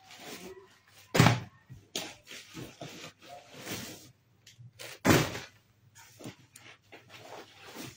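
Plastic-packed lawn suit sets dropped one at a time onto a carpeted floor: soft thuds with plastic crinkling, the two loudest about a second in and about five seconds in.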